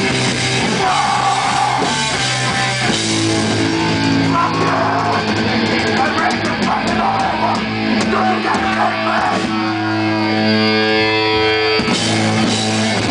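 Crust punk band playing live and loud: electric guitar chords held and ringing out over drums and cymbals.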